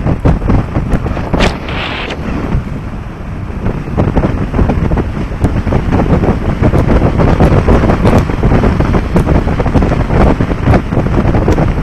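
Heavy wind buffeting the microphone of a helmet-mounted camera on a moving bicycle, a dense, fluttering rush.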